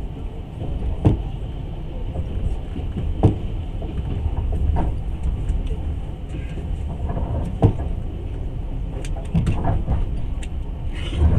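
Passenger train running along the track: a steady low rumble of wheels on rails, with a few sharp knocks and rattles at uneven intervals.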